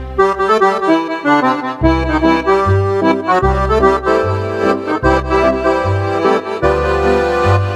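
A Roland digital piano accordion playing a tune: a melody and chords on the right-hand piano keys over bass notes from the left-hand buttons that come on a regular alternating beat.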